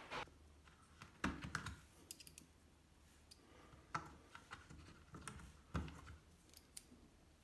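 Light plastic-and-metal clicks and taps as screwdriver bits are handled and pulled from the clip slots of a Bosch bit-set case. The clicks are irregular, a handful spread out, with a few sharper high ticks among them.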